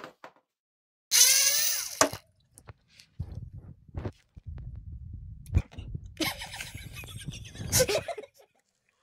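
Handling noise from a handheld camera being moved about: rustling and knocks over a low rumble, with a short loud hiss about a second in.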